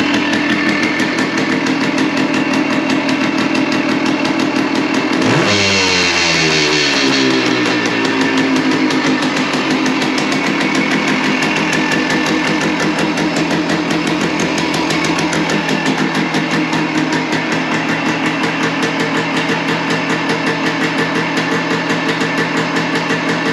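Suzuki Hustler 250's air-cooled two-stroke single-cylinder engine running after a start-up check. About five seconds in the revs jump, then fall away over a few seconds and settle into a steady idle.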